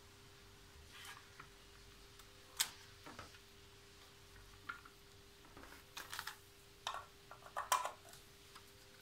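Scattered light clicks, taps and knocks from a Metabo KS 55 FS circular saw and its power cord being handled on a wooden workbench, with a cluster of them in the last few seconds. A faint steady hum sits underneath.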